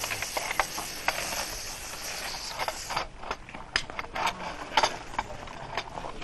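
Metallic clicks and clanks of disassembled machine-gun parts being handled during cleaning. A steady hiss of lubricant being sprayed onto a gun barrel runs under the first three seconds and stops abruptly.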